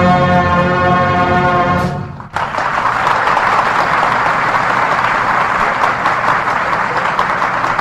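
Symphonic band holding a final brass chord that cuts off about two seconds in, followed by steady audience applause.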